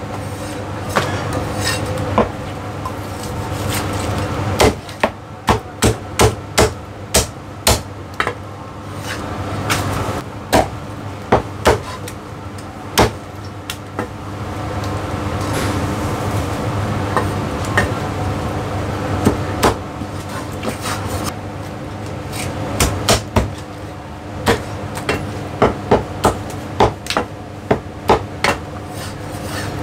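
Heavy Chinese cleaver chopping roast goose on a thick wooden chopping block: sharp chops in runs of about one or two a second, with short pauses between runs.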